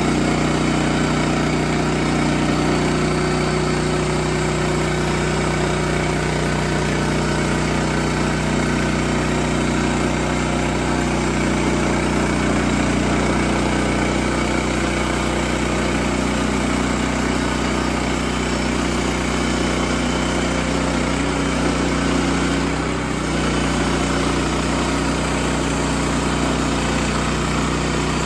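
Sawmill's engine running steadily, with a brief dip in level about 23 seconds in.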